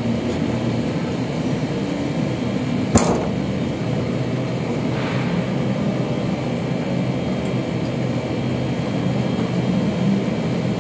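Denyo diesel generator set running steadily with an even drone. A single sharp click or knock comes about three seconds in.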